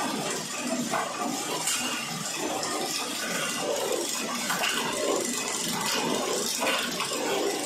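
Cookie flow-wrapping machine running: an irregular mix of mechanical noise and hiss with no clear beat.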